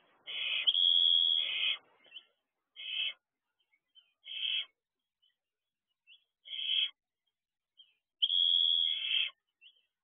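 Barn owl giving harsh, hissing screech calls: two long screeches, one near the start and one about eight seconds in, with three short rasping calls between them.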